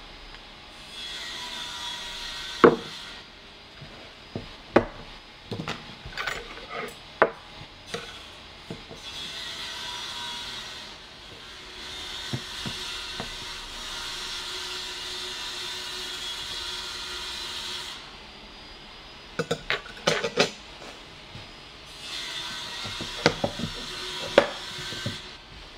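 Serving utensils tapping, clinking and scraping on a ceramic plate as food is served onto it, in scattered sharp clicks and taps. Between the taps there are stretches of steady hiss.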